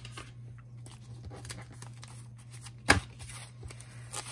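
Paper dollar bills being handled and picked up, with faint rustling and light clicks and one sharp tap about three seconds in, over a steady low hum.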